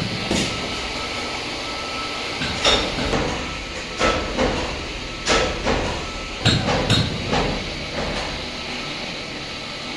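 Cord braiding machines for tasma dori running: a steady mechanical clatter with sharp, irregular clacks every half second or so and a faint steady whine.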